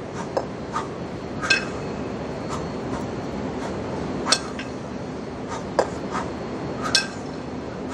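Two 20 kg kettlebells knocking together with a sharp metallic ring about every three seconds during double-kettlebell clean-and-jerk reps, with softer clinks in between. A steady low hum runs underneath.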